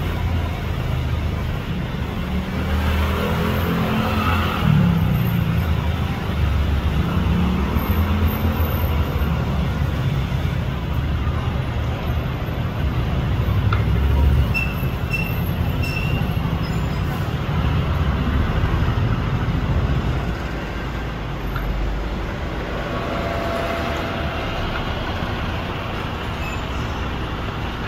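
Steady roadside traffic rumble from passing road vehicles, with engine tones rising and falling a few times in the first ten seconds.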